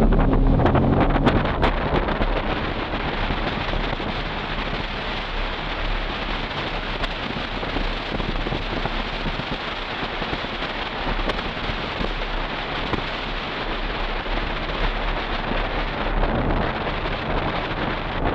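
2000 Toyota 4Runner with a Flowmaster Super 40 exhaust driving under steady road and wind noise. The engine and exhaust tone is clearest at the start, fades under the road noise, and comes up again near the end.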